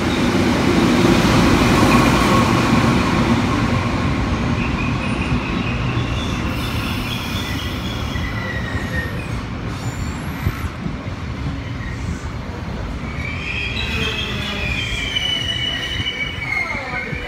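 An XPT train arriving at a platform: the diesel power car passes close, loudest about two seconds in, then the carriages roll by. High squeals come and go as the train slows, twice for a few seconds each.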